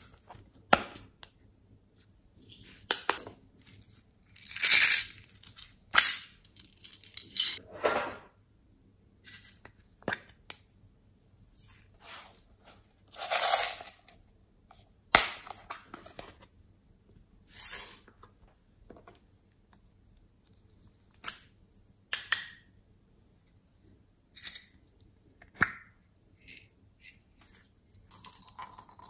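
Hands handling small plastic cases: a string of short scrapes and rustles with a few sharp clicks, separated by quiet gaps.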